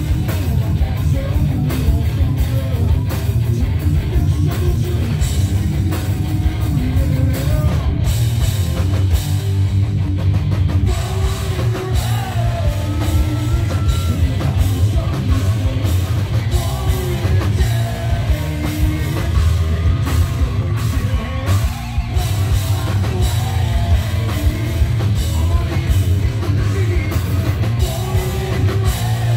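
Live heavy-metal band playing loud: distorted electric guitars, bass guitar and a drum kit, with a singer's vocals over them that stand out more in the second half.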